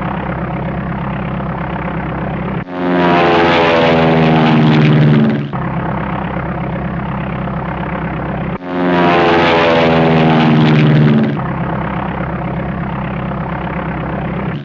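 A motor engine running with a steady drone, twice jumping to a louder, higher-pitched run of about three seconds whose pitch glides, each starting and stopping abruptly.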